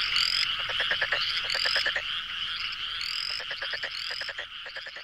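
A chorus of frogs calling. A dense high-pitched din of calls is broken by short, fast trills of clicks, with a rising whistle repeating about every second and a half.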